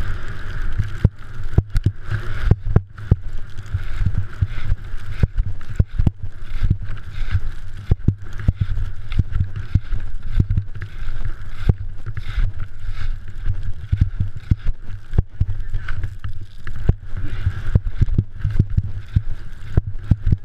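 Skiing fast down a mogul run heard on a GoPro camera's microphone: a steady rumble of wind and ski noise, broken by frequent irregular knocks and thuds as the skis hit the bumps.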